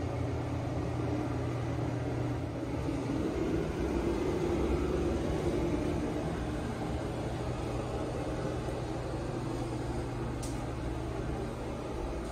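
Steady low mechanical hum with a rushing air noise, typical of a room's ventilation fan or air-conditioning running. A short sharp click about ten seconds in.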